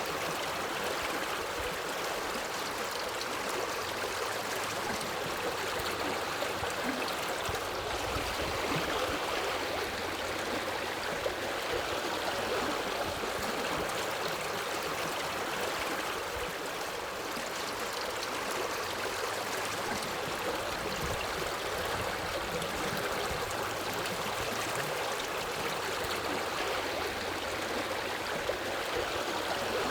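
Forest river flowing over rocks: a steady, even rush of water with a little gurgling and splashing.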